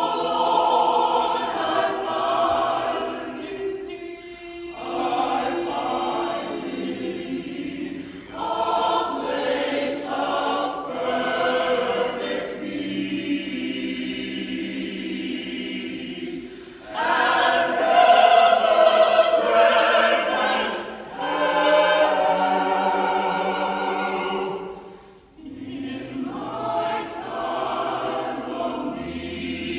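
Mixed choir of women's and men's voices singing in harmony under a conductor, in long phrases with a few brief breaks between them.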